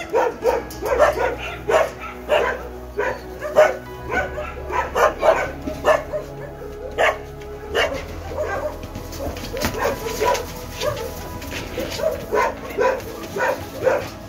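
A group of mixed-breed dogs barking and yipping over one another, several short barks a second without a break.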